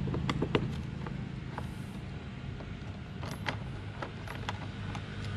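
Screwdriver turning a screw out of a motorbike's plastic leg shield: scattered small clicks and creaks over a low steady hum.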